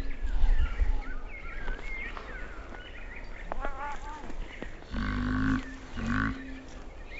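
Two domestic cats play-fighting, one giving two low, drawn-out growling calls a little past the middle, each about half a second long. Birds chirp in the background early on.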